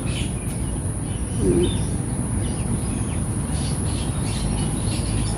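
Birds chirping in short scattered calls, over a steady high-pitched insect drone and a low rumbling haze.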